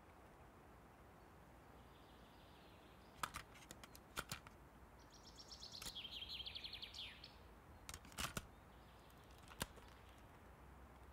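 Near silence: faint room tone with a few soft clicks and, about five seconds in, a brief high rapid chirping trill.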